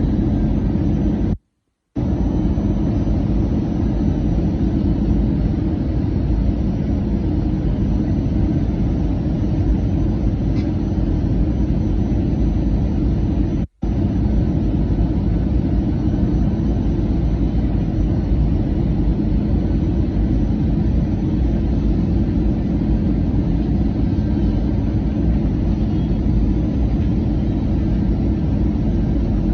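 Steady low rumble of an Airbus A320-200's engines and airflow heard inside the passenger cabin in flight, with a faint steady hum under it. The sound cuts out completely twice, briefly, about 1.5 s and about 14 s in.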